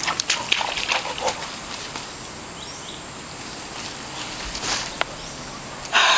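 Steady high-pitched insect drone with scattered soft rustles and clicks in the first second or so. A man's loud yell breaks in at the very end, as the drone cuts off.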